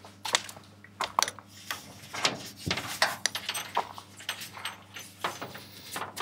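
Plastic solar DC cable connectors on a microinverter's leads being handled and pushed together by hand: an irregular run of sharp clicks and rattles.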